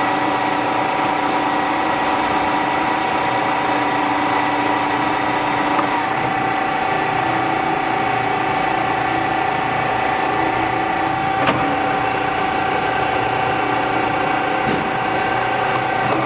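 Warner & Swasey No. 3 turret lathe spindle running steadily at about 900 RPM, its geared drive giving a steady hum with several fixed whining tones. A single short click comes about eleven seconds in.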